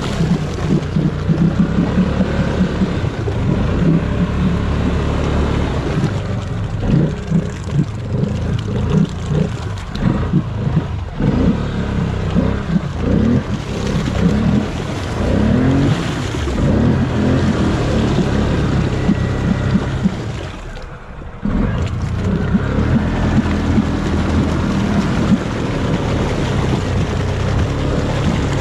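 ATV engine revving hard and unevenly through deep mud, the revs climbing and falling again and again. It drops off briefly about three quarters of the way through, then picks back up.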